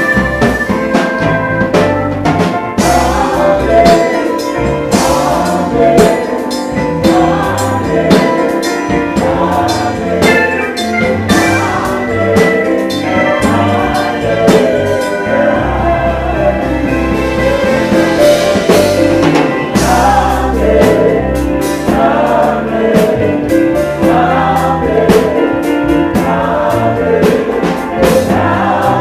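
Live gospel music: several electronic keyboards playing together over a drum beat and bass line, with voices singing along.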